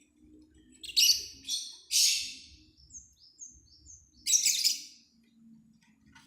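Lovebirds calling: a few loud, harsh shrieks in quick succession, then several short falling chirps, then another harsh shriek about two-thirds of the way through.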